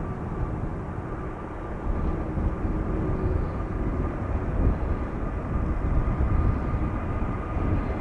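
Boeing 747 freighter's four jet engines running as it taxis at low power: a steady low rumble with a thin, even whine on top.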